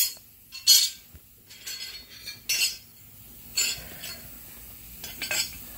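Sharpened steel Toro TimeMaster mower blades being handled, with about six short metallic clinks and scrapes spread unevenly; the loudest comes just under a second in.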